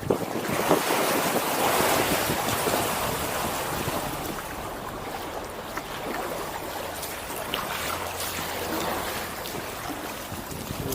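Water splashing and rushing along a kayak as it is paddled, with wind on the microphone; louder in the first few seconds.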